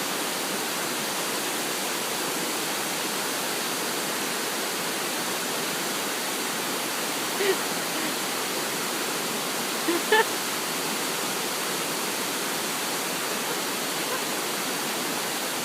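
Waterfall: a steady rush of falling water, with two short calls rising above it about seven and ten seconds in.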